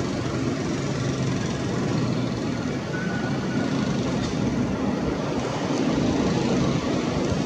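Twin General Electric CF6-80C2 turbofans of a Boeing 767-300 freighter at climb power just after takeoff: a steady jet roar from the aircraft climbing overhead.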